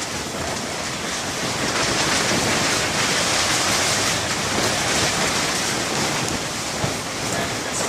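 Storm wind gusting against a flimsy plastic-sheeted hoop-house greenhouse, a dense rushing noise that swells about a second and a half in and eases near the end.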